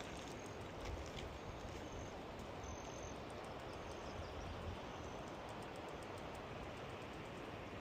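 Steady outdoor background noise, with a few short high chirps from a bird or insect in the first five seconds and a couple of low bumps on the microphone.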